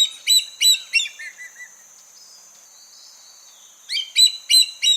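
Hawk calling: a run of about five sharp, high, repeated cries, then a pause and a second run of about four near the end. A faint steady high-pitched tone runs underneath.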